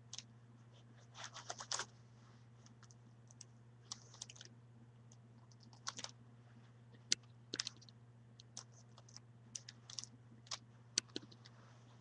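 Plastic Rubik's cube layers clicking and clacking as they are twisted with bare feet, in irregular clusters of clicks with pauses between. A steady low hum runs underneath.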